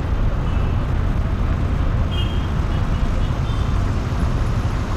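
Bus engine running with a steady low rumble, with a few faint short high chirps about two seconds in.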